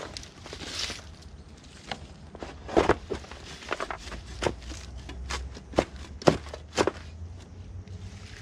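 Homemade lever grass chopper with a machete blade chopping through bunches of grass: a dozen or so sharp, irregular chops, roughly one to two a second.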